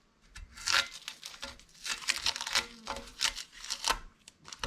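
Painted-over masking tape being peeled and torn off an O2 sensor and its wire, a string of short crinkling, tearing strokes.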